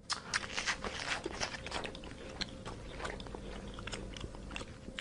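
An animal chewing: irregular crunching and crackling with many small sharp clicks.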